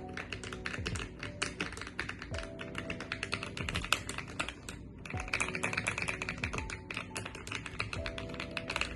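Fast, continuous typing on an Ajazz AK680 Max keyboard with magnetic switches, the keystrokes clacking in quick succession, with a brief pause about five seconds in. Faint background music runs underneath.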